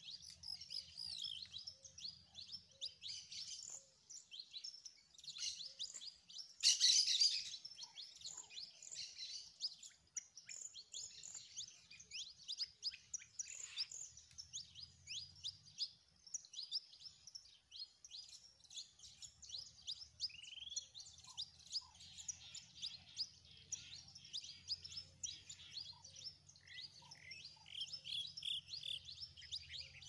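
Many small birds chirping and singing together in a dense, continuous chorus of short high calls, with one louder burst of calls about seven seconds in. A faint low rumble runs underneath.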